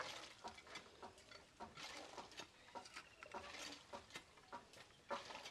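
Scattered light clicks and short scrapes of hand food preparation: a stone muller is rolled and knocked on a flat grinding stone, then cloves are handled and peeled, with small crackles.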